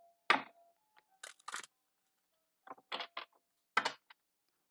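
A handful of short, sharp clicks and taps, in small clusters, from cards being handled and laid down during a card reading.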